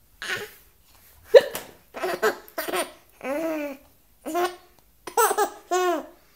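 A seven-month-old baby with the hiccups laughing in short, high-pitched bursts, some of them held squeals that rise and fall, with a sharp hiccup about a second in.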